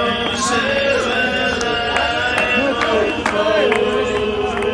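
Music with singing over a steady percussive beat.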